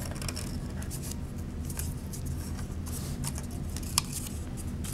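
Construction paper rustling and crinkling in the hands as folded paper petals are worked around a plastic straw, with one sharp click about four seconds in, over a steady low hum.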